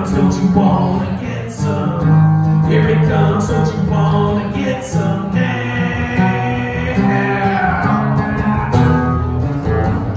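Live acoustic guitar strummed in chords, with a man singing along.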